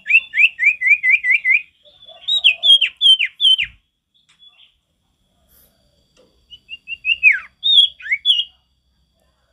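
A male common iora (sirtu) singing: three phrases of clear whistled notes, each note sliding down in pitch. The first is a quick run of about seven notes, then a pause and five louder notes, then silence and a last phrase near the end with one long falling note.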